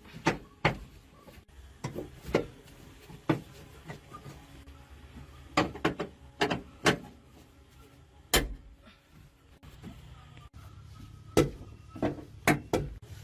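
A series of about fourteen sharp knocks and clanks at an irregular pace, some in quick pairs, typical of hand tools striking and handling metal parts during engine repair. A low steady hum runs underneath.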